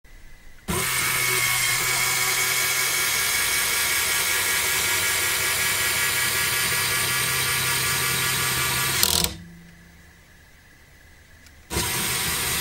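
LEGO Technic electric motor whirring steadily through its gears as it drives a linear actuator that raises the tipper linkage. It stops with a sharp click after about eight seconds, then starts whirring again about two and a half seconds later, moving the linkage back down.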